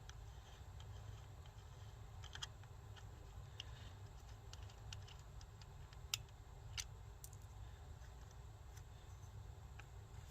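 Faint, scattered light clicks and taps of small parts and tools being handled while a chainsaw's chain tensioner is worked on, over a low steady hum.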